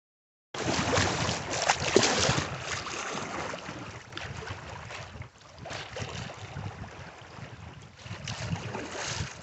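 Wind buffeting the microphone over choppy river water splashing against a kayak's hull, in uneven gusts that are strongest in the first couple of seconds. It starts about half a second in.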